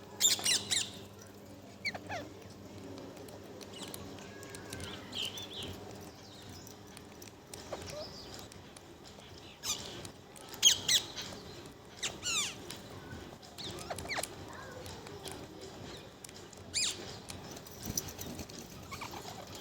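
Pet parrot giving short, sharp calls with quick rising and falling pitch, about eight of them spaced a few seconds apart.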